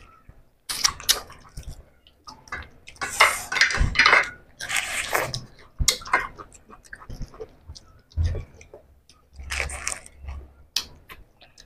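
Wet eating sounds of people biting into and sucking juicy pomelo segments and chewing the pulp, in irregular bursts of clicks and smacks. The loudest bursts come about three to five seconds in and again near ten seconds.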